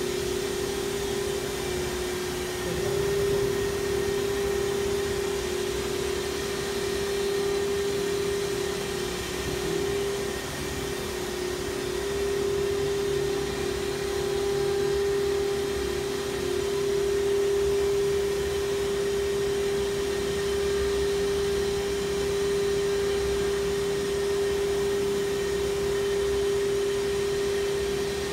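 Spindle of a 12-tool automatic tool-change CNC woodworking router running at speed, one steady high-pitched whine over a constant machine hum, its pitch stepping up slightly about three seconds in.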